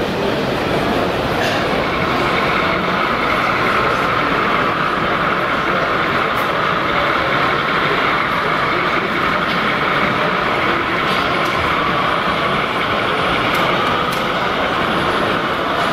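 H0-scale model diesel locomotive running along layout track, a steady whine that sets in about one and a half seconds in, over constant exhibition-hall noise.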